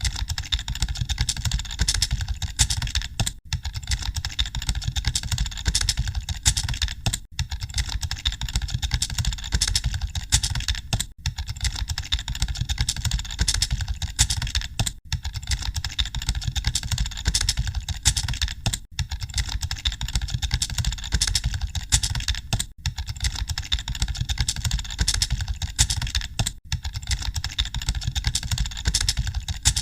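Fast, continuous typing on computer keyboards, with keystrokes packed closely together and a brief break about every four seconds.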